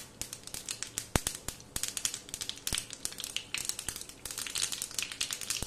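Mustard seeds crackling and popping in hot oil in a small tadka pan: rapid, irregular pops over a light sizzle, with sharper pops about one second and two and a half seconds in. The crackling shows the oil is hot enough and the tempering is ready for the cumin.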